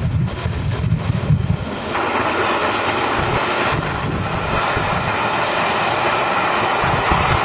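Steam-hauled passenger train running past at speed: a steady, even rumbling noise that becomes fuller about two seconds in as the locomotive and coaches draw level.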